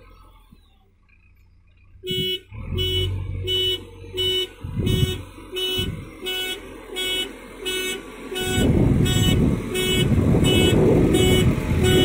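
JCB 3DX backhoe loader's reversing alarm beeping about twice a second as the machine backs up, starting about two seconds in, over its diesel engine. The engine gets much louder about two thirds of the way through.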